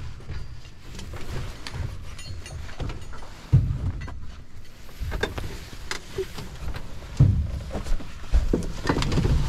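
Knocks, bumps and rustling as someone climbs into the rear seat of a small light aircraft's cabin, over a low wind rumble on the microphone. There is a sharp knock about three and a half seconds in and more knocks from about seven seconds on.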